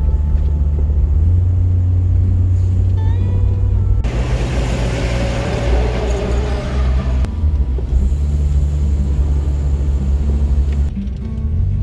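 Campervan driving along: a steady low engine and road rumble, with a louder rushing noise joining for about three seconds in the middle.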